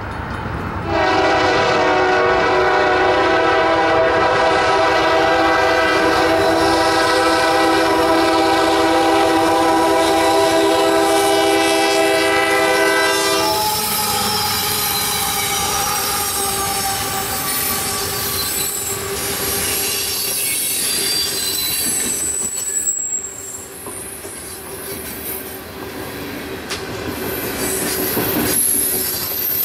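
Union Pacific coal train's locomotive air horn sounding one long chord of several notes, held for about twelve seconds as a crossing warning. The horn stops as the locomotives pass, and the coal hopper cars roll by with wheels squealing and clattering over the rail joints.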